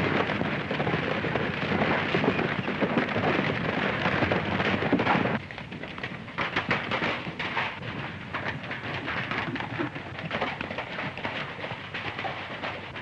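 A sudden, loud rumbling crash, as of an explosion or falling rock, that lasts about five seconds and then drops to a quieter crackling rumble with many small clicks.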